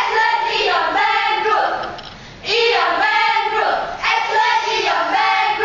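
Cheerleading squad shouting a chanted cheer in unison, in short rhythmic phrases, with a brief break about two seconds in.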